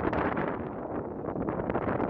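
Wind buffeting the camera's microphone, a rough, gusty rumble and rush that rises and falls.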